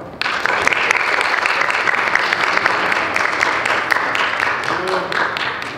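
Audience applauding: a burst of many hands clapping that starts suddenly and dies away near the end.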